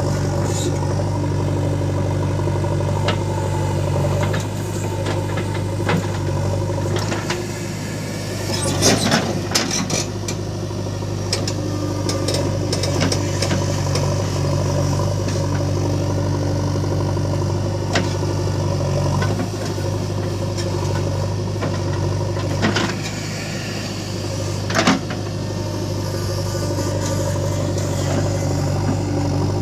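Heavy diesel engine running steadily. Its low note dips a few times, and sharp knocks stand out about nine and twenty-five seconds in.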